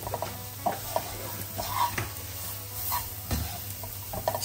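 Wooden spatula stirring and scraping a frying onion and spice mixture around a nonstick kadai, in uneven strokes, while the coconut oil sizzles steadily underneath.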